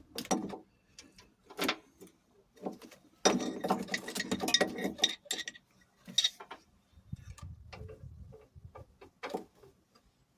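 Metal spanners clinking and clattering as they are handled and sorted through, with a longer jumble of rattling about three seconds in.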